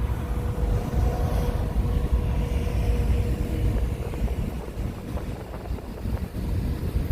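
Wind buffeting the microphone as a low, uneven rumble, with a faint steady tone in the first few seconds.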